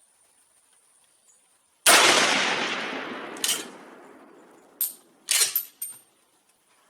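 A single shot from a Swiss K-31 straight-pull rifle firing 7.5x55mm GP11 ammunition, its report dying away slowly over about two seconds. A few seconds later come several sharp metallic clacks with a ringing edge, the sound of the bolt being cycled.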